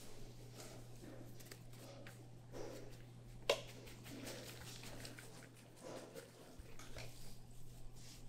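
Soft pattering and handling sounds as chopped scallions are shaken from a plastic bowl onto soft dough, over a steady low hum. One sharp click about three and a half seconds in is the loudest sound.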